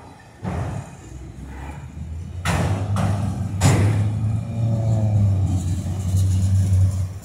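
Freight train of autorack cars rolling past close by: a steady low rumble with sharp metallic clanks from the wheels and couplers, the loudest about two and a half and three and a half seconds in. The rumble drops away suddenly near the end.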